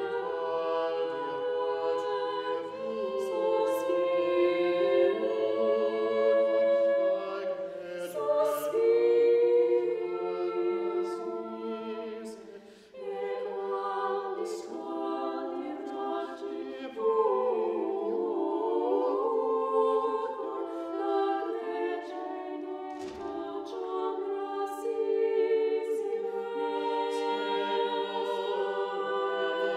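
Background choral music: many voices singing slow, long-held chords, with a brief drop in level about halfway through.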